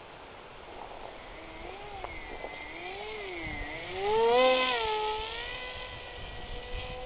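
Electric motor and propeller of a small RC foam plane whining in flight, its pitch swooping up and down and growing loudest about four seconds in as it passes close, then settling to a steadier tone.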